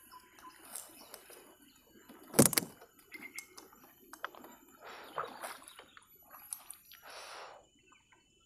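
Wet nylon gill net being pulled in and handled over the side of a small boat: rustling net and splashes of water, with one sharp knock about two and a half seconds in.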